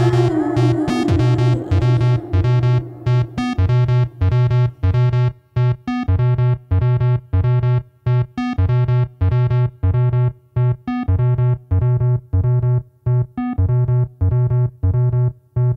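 Instrumental passage played on analog synthesizers and keyboards: short, choppy chord stabs repeat about twice a second over a pulsing synth bass, with brief gaps between the stabs.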